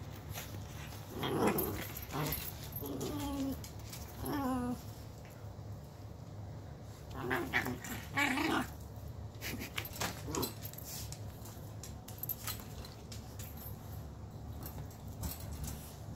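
Small Portuguese Podengo giving a series of short, grumbling play growls, the 'arrr' sound, while mouthing and tugging a plush toy. The growls come in about six bursts, most of them in the first ten seconds, each dropping in pitch.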